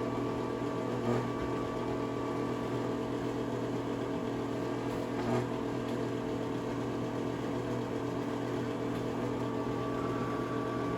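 Bathroom exhaust fan running steadily: an even whirring hum with a few steady tones, unchanging throughout, with a couple of faint knocks about a second in and again about five seconds in.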